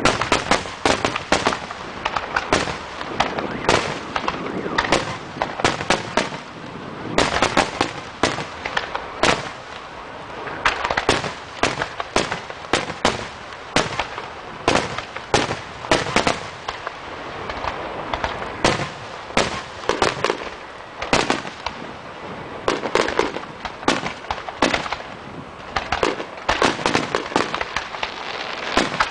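Aerial fireworks shells bursting in rapid, continuous volleys: dozens of sharp bangs and crackles, with brief lulls between the barrages.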